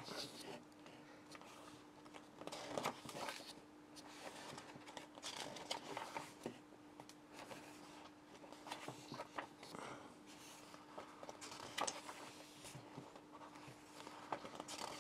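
Pages of a glossy paper booklet being turned one after another: faint rustles and soft flicks of paper, over a low steady hum.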